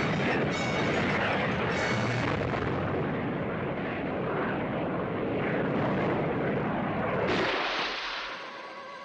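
Cartoon sound effect of a firework rocket blasting off and rushing through the air, a loud continuous noise. About seven and a half seconds in it gives way to a brighter splash as the rocket drops into water, then fades.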